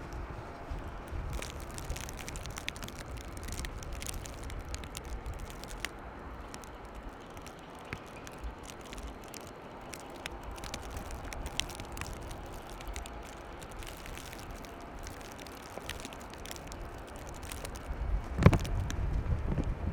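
City street ambience in a snowstorm: a steady low rumble with irregular crackling clicks. Near the end, wind buffets the microphone in loud gusts.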